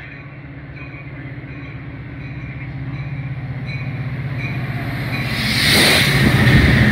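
A Metra commuter train led by an EMD F40PH diesel locomotive approaching and passing close by. The engine's steady drone grows louder, then a loud rush of engine and wheels as the locomotive goes by about six seconds in.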